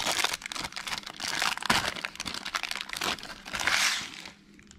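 Wrapper of a 1993-94 Topps basketball card pack crinkling and tearing as it is ripped open by hand, in uneven crackling bursts that die away shortly before the end.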